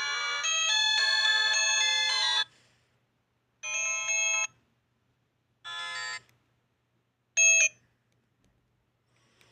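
Ringtone melody from a Keneksi S9 mobile phone, cut off about two and a half seconds in, followed by three short separate tones, each a different sound with pauses between them, as ringtones are previewed one after another.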